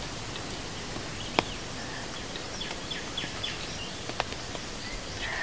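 Outdoor background noise with a small bird calling a quick run of about six short, high, falling chirps around the middle, and two sharp clicks.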